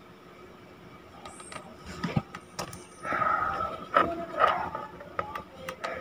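Light clicks of multimeter probe tips against the heating-element terminals, over faint background voices.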